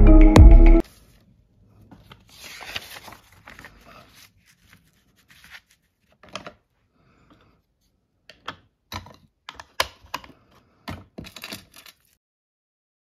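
Background music ends about a second in. Then comes paper handling: a brief rustle, followed by scattered light taps and clicks.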